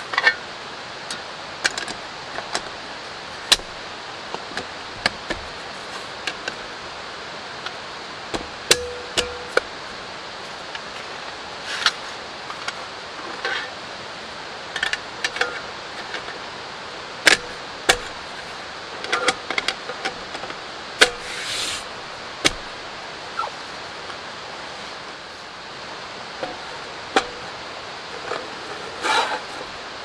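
Steady hiss of light rain, with irregular sharp clicks and clinks from a black metal mesh camping table as it is handled and set up.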